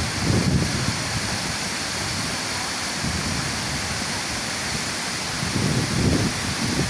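Icy waterfall rushing: a steady hiss of falling water. Wind buffets the microphone with low rumbles about half a second in and again near the end.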